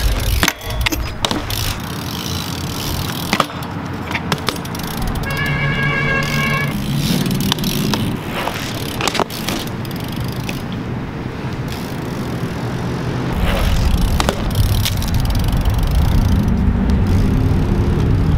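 BMX bike tyres rolling and scrubbing on concrete, with scattered clicks and knocks from the bike during tricks and one brief squeal about five seconds in. A low rumble grows stronger in the second half.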